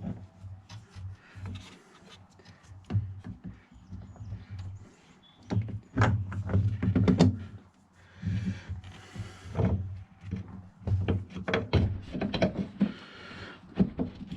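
Irregular knocks, clunks and clicks of metal parts and tools being handled and worked into place on an ATV's front axle and suspension, some sharper and louder than others.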